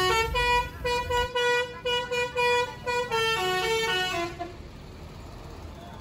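Basuri-style telolet horn on a Dua Putra tour bus, playing a quick tune of short notes that step up and down in pitch. It stops about four seconds in, leaving low engine and road noise.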